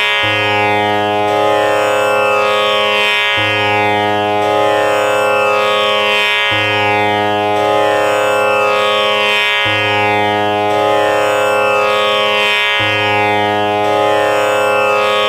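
Background music: a steady droning instrumental loop with many held tones, restarting about every three seconds.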